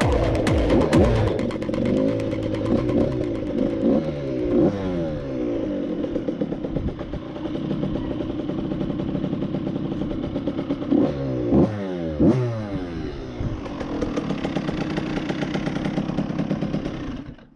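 2012 KTM SX 85's two-stroke engine revving up and down as the dirt bike is ridden over loose dirt, with several quick sharp blips of the throttle. The engine sound stops abruptly near the end.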